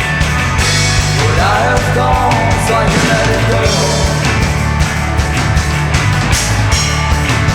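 Live rock music played by a band, loud and dense, with a melodic line that bends up and down in pitch between about one and three seconds in.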